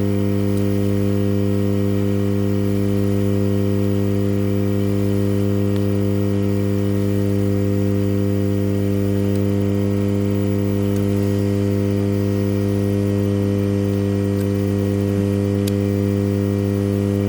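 Hot-air rework station running at working temperature: a steady, loud electrical hum with even overtones, unchanged throughout, while the board is heated to melt the solder under the chip.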